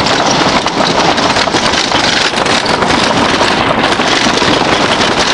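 Loud wind rushing over the microphone of a rider on a moving wooden roller coaster, mixed with the rattle of the train running along its track.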